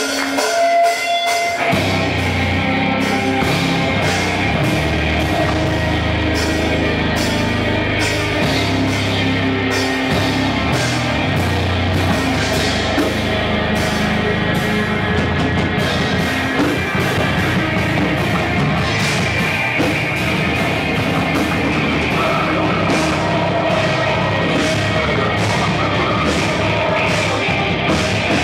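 Metalcore band playing live, with electric guitars, a five-string bass guitar and a drum kit. The full band comes in about two seconds in and plays on at full volume.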